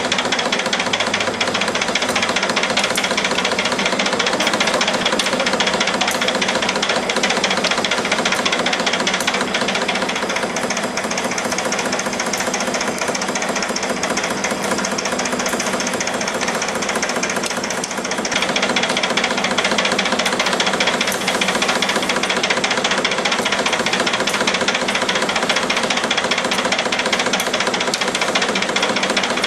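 Simco D-530 CNC spring coiling machine running, a fast, steady mechanical clatter that dips briefly about eighteen seconds in.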